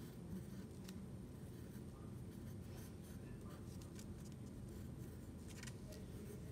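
Pencil writing on a small paper flap: faint, irregular scratching strokes over a steady low background hum.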